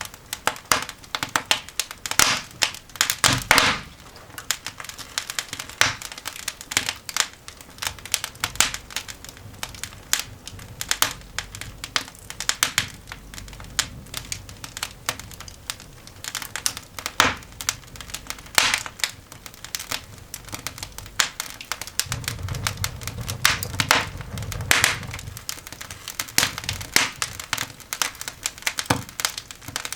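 Newly lit coal fire crackling in a cast iron dog grate: dense, irregular sharp snaps and pops, with a low rumble for a few seconds a little past the middle.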